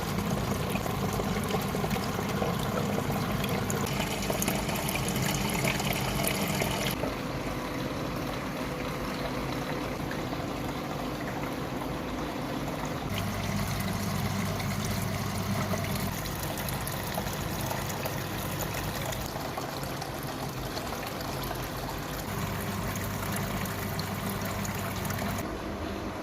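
Water trickling and splashing steadily down a small paludarium waterfall. The sound changes character abruptly a few times.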